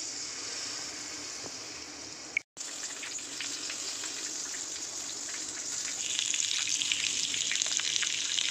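Battered prawns deep-frying in hot oil in a kadhai: a steady sizzle with many small crackles. The sound is broken by a short gap about two and a half seconds in and gets louder in the second half.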